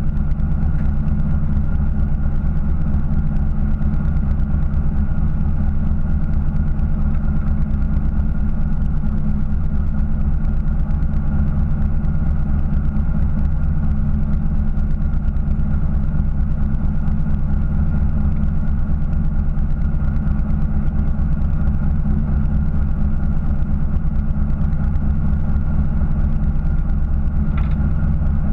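Fishing boat's engine idling steadily, a constant low hum that does not change.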